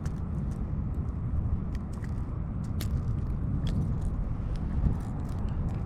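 Steady low rumble with light, scattered small clicks over it.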